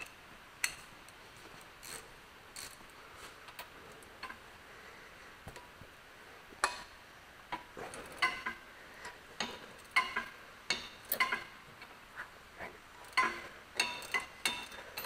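Scattered metal clicks and clinks of hand tools, a socket and ratchet being handled and fitted: sparse at first, more frequent from about halfway on.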